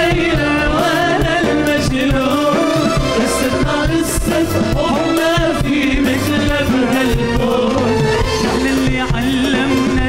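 A male singer performing an Arabic pop song live with a full band, his voice wavering through ornamented phrases over a steady beat.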